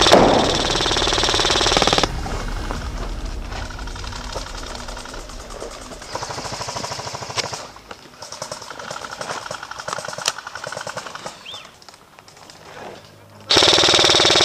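Airsoft rifle firing full-auto: a rapid rattling burst of about two seconds at the start and another, slightly shorter one near the end, with fainter bursts of fire in between.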